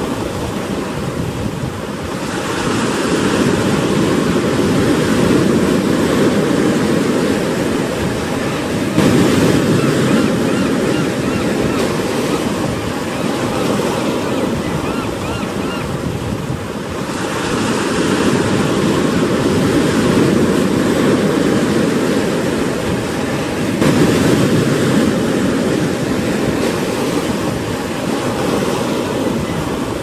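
Pacific Ocean surf breaking against rocks and the pilings of a wooden pier: a continuous rushing wash that swells and eases with each wave. It surges most sharply about nine seconds in and again about twenty-four seconds in.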